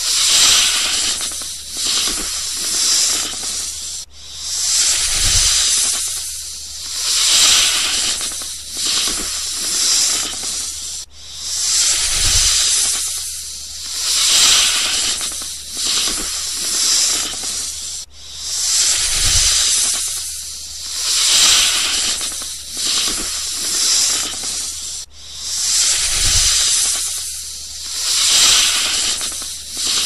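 Snake hissing: a run of breathy hisses, one about every one and a half to two seconds, repeating as a loop about every seven seconds with a faint low thud once per loop.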